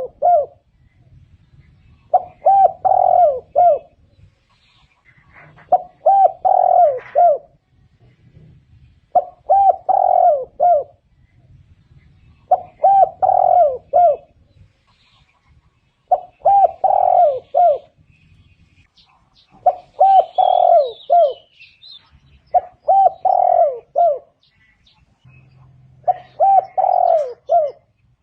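Spotted dove cooing: a phrase of several low notes, repeated about every three and a half seconds. Faint high chirps from another bird come in about twenty seconds in.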